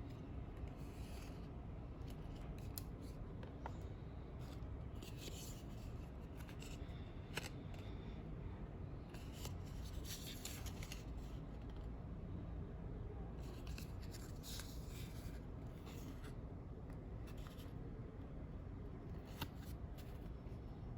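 Packaging being handled and opened: intermittent short rustles and scrapes, with a few sharp clicks, over a steady low hum.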